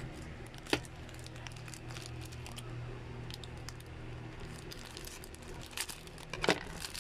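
Small clear plastic bag crinkling as it is handled, in scattered light crackles with a sharper crackle under a second in and a louder cluster near the end, over a low steady hum.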